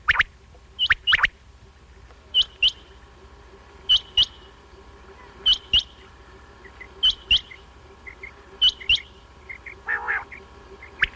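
Quail calling: a sharp, high phrase of two or three quick notes, repeated about every second and a half. A rougher, lower-pitched call about ten seconds in.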